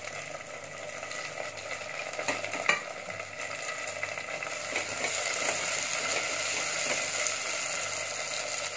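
Onions and freshly added chopped tomatoes sizzling in hot oil in a clay pot, stirred with a wooden spatula. The spatula knocks against the pot a few times a little over two seconds in, and the sizzle grows louder about five seconds in.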